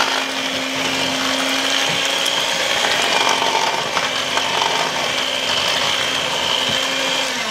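Electric hand mixer running steadily as its beaters whir through thin chocolate cake batter, with a constant motor hum and a high whine. Near the end it winds down, the whine falling in pitch as the motor slows.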